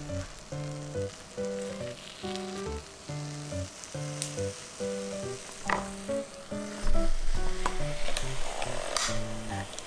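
A croissant sizzling between the hot plates of an electric waffle maker, starting about seven seconds in when the lid is shut on it. Background music with a simple melody plays throughout.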